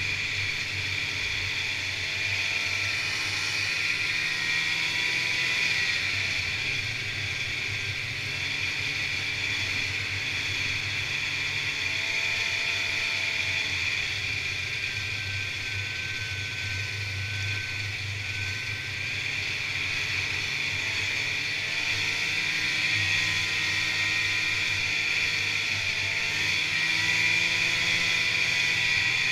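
Snowmobile riding along a trail, heard from on board: the engine running steadily under a constant high hiss and whine, with small rises and falls in pitch now and then.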